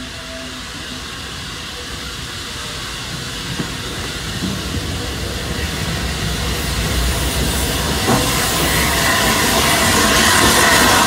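Steam locomotive Flying Scotsman, an LNER A3 Pacific, approaching along the line, growing steadily louder. Steam hisses and the train rumbles, the hiss strongest near the end.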